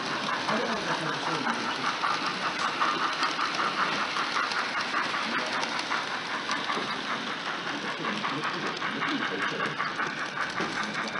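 Model trains running on an exhibition layout: a steady running sound with a fast, even ticking, the clicking of small wheels and mechanisms on the track. Background voices murmur behind it.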